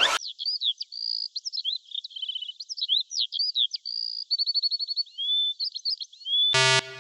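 A songbird singing a varied run of quick chirps, short whistles and rapid trills, thin and high with no low end. A rising whoosh cuts off just at the start, and near the end a loud pulsing synth tone comes in.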